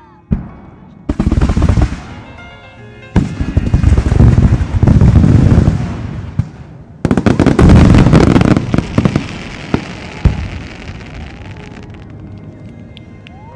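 Starmine fireworks finale: rapid barrages of shells launching and bursting, a dense mass of cracks and booms over a heavy rumble. The barrages start suddenly about a second, three seconds and seven seconds in, and ease off near the end into lighter crackling.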